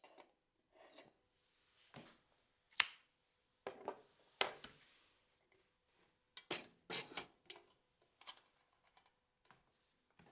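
Manual typewriter being worked: scattered, irregular mechanical clacks and key strikes with gaps between them. The sharpest, loudest strike comes about three seconds in, with clusters of clacks around four and seven seconds.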